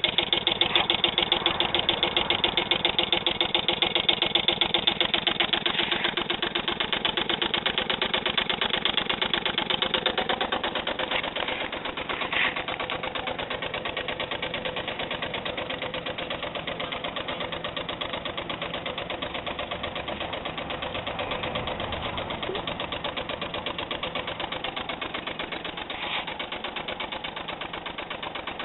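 Small two-stroke engine converted to run on steam, running steadily with a fast, even beat. It drops in level about ten seconds in, and there is one sharp click about twelve seconds in.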